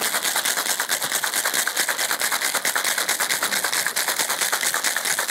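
Ice rattling inside a metal cocktail shaker as a bartender shakes a cocktail hard, in a fast, even rhythm.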